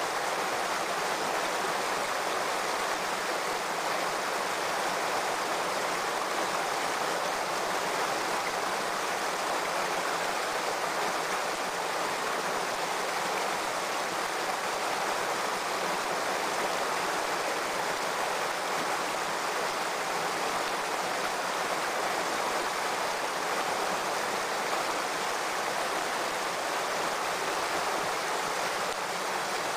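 Shallow rocky stream running over stones: a steady rush of water that does not change.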